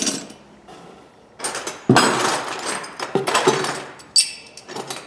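Steel hand wrenches clattering and clinking against one another as they are rummaged through in a box of tools, with a sharp clink at the start, a long jangle in the middle and another sharp clink near the end.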